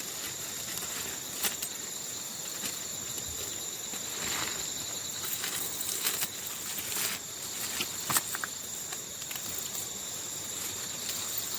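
Night insects chirring in a steady high-pitched drone, with scattered light clicks and knocks scattered through it.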